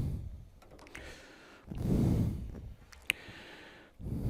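A person breathing close to the microphone, slow breaths about two seconds apart, with one sharp click about three seconds in.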